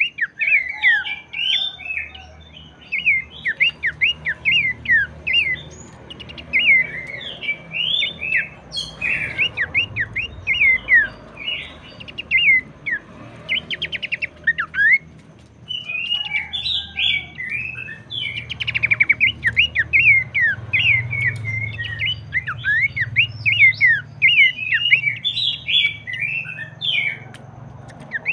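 Pelanduk semak (Horsfield's babbler) singing fast, gacor song: a continuous run of sharp chirps that sweep quickly up and down, with a short lull about halfway through. A faint low hum lies underneath.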